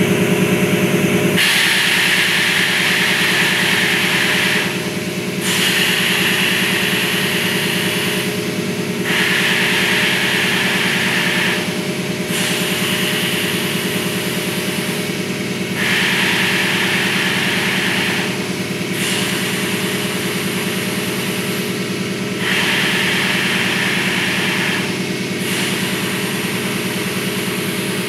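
Pneumatic sheet bending machine with 100 × 300 mm air cylinders cycling: a hiss of compressed air about three seconds long, broken by short pauses about every three and a half seconds. A steady low machine hum runs under it.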